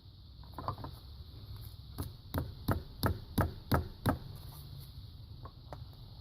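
Hammer blows driving a claw hammer's nail puller, wedged under a rusted-in diesel injector, to pry the injector up: a few light clinks, then seven sharp, even strikes about three a second.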